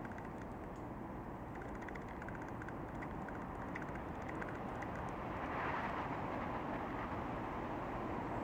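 Outdoor background noise: a steady low rumble that swells about halfway through, with faint rapid ticking in the first half.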